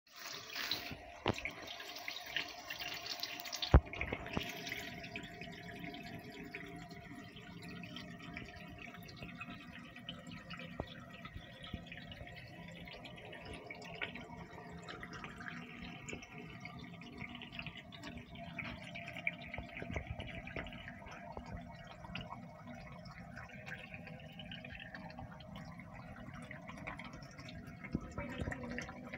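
Aquarium water dripping and trickling over a steady faint hum, with scattered small clicks and one sharp click about four seconds in.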